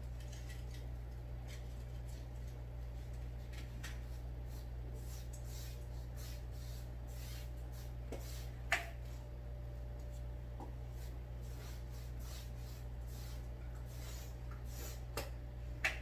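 Faint, irregular scratchy strokes of a paintbrush working red paint on a canvas, over a steady low hum. A sharper click comes about nine seconds in and another near the end.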